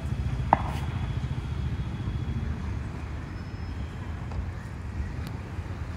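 Steady low rumble of street traffic, with one sharp click about half a second in.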